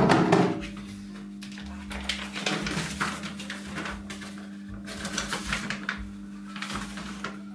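Background music with a steady low drone, over rustling and handling noises as a sheet of photographic paper is taken out of its package. A loud bump comes right at the start.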